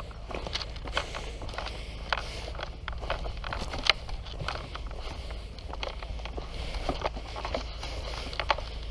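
Footsteps through dry leaves and twigs: irregular crackles and snaps, over a steady low rumble.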